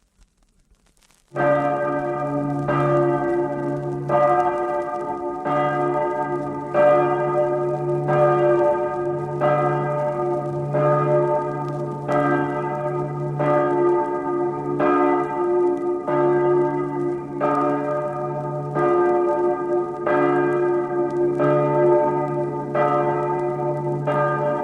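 Church bells ringing a rapid peal: struck strokes follow each other about every two-thirds of a second, with the notes changing from stroke to stroke. The ringing starts suddenly about a second in, after a short silence.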